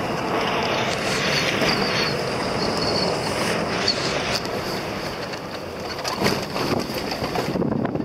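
Cabin noise of a vehicle driving on a rough, potholed road: a steady rush of engine, tyre and wind noise, with short knocks from bumps in the later part.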